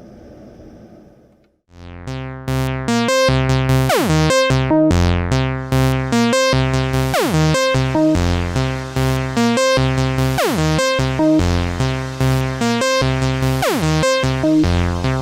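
Erica Synths Bassline DB-01 acid bass synth playing a rhythmic sequenced bass line with repeated falling filter sweeps, run through a Nightverb stereo reverb. It starts about two seconds in, after a quiet sustained reverb wash fades away.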